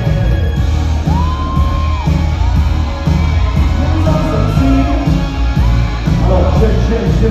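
Amplified pop music with a heavy bass beat and a lead line of long held notes that slide up and down in pitch, played over a sound system during a rehearsal sound check.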